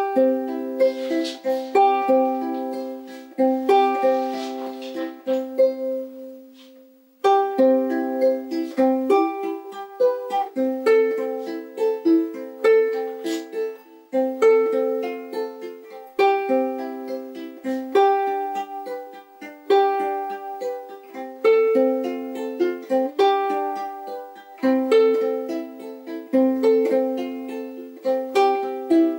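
Ukulele playing a short tune in strummed chords, several strums a second, with a brief break about seven seconds in.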